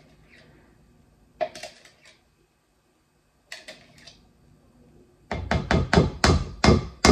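A spoon scraping mashed banana out of a plastic container, with a couple of light knocks, then knocked sharply and repeatedly against the dish about four or five times a second near the end to shake the banana off.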